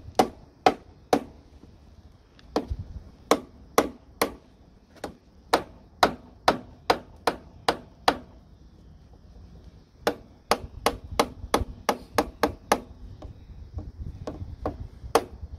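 Hand tools working on the oil pump mounting bolts of a SNECMA 12T aero engine: runs of sharp metallic clicks, about three a second, faster for a stretch past the middle, with short pauses between runs.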